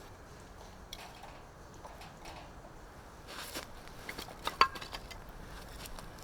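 Light clicks and knocks of objects being handled, with a brief rustle a little after three seconds and one sharp clink about four and a half seconds in.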